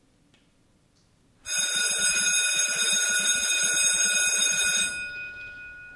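Electric school bell ringing with a fast metallic rattle for about three seconds, signalling the end of a lesson. It starts suddenly and stops abruptly with a brief fading ring.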